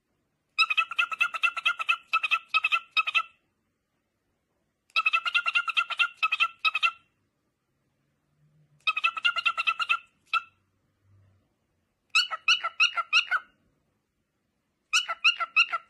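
A cockatiel chattering: five bursts of rapid repeated chirps, each lasting one to two and a half seconds, with short pauses between them.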